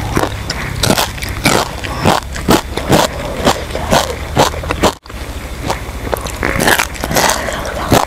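Close-miked chewing of cooked quail eaten bones and all: a run of sharp crunches about twice a second as the small bones break. The sound drops out briefly about five seconds in.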